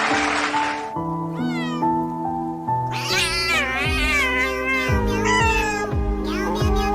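Music with held notes and a low beat, with cat meows laid over it. There is a rushing noise in the first second and one short meow about a second and a half in. From about three seconds in, the meows come one after another in rising and falling glides.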